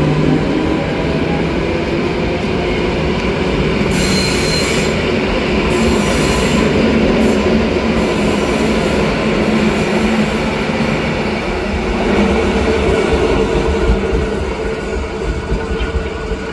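Koleje Mazowieckie EW60 electric multiple unit running past along the platform: a loud, steady rumble of wheels on rail with a motor hum, and short high-pitched squeals about four, six and eight seconds in.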